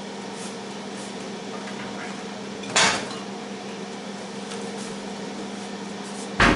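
Steady hum of a Tristar FR-6989 air fryer's fan running, with two sharp clattering knocks, one about three seconds in and one near the end.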